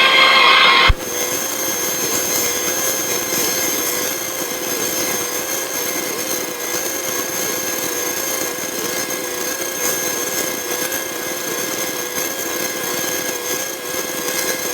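Cessna 150's four-cylinder engine running steadily on the ground, heard in the cabin as an even drone with a steady, slightly wavering hum. A brief higher sound in the first second cuts off abruptly about a second in.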